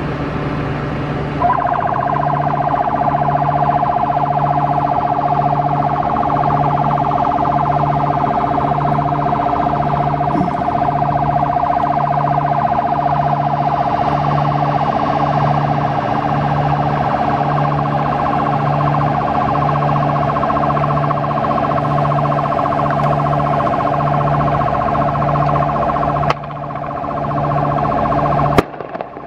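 Electronic scare siren used to drive pelicans off fish ponds, sounding a steady, unwavering tone over a low pulse that repeats about once a second. It grows louder about a second and a half in and breaks off near the end.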